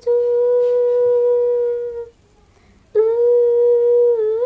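A young girl's voice holding long wordless hummed notes at a steady pitch while singing her own song. The first note lasts about two seconds; after a short break a second note starts about three seconds in and wavers slightly near the end.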